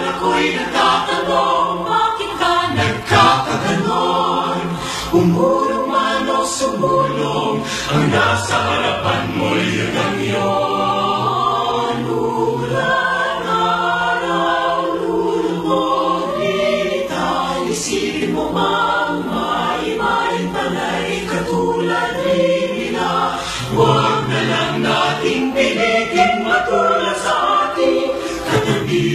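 Music with a choir of voices singing throughout.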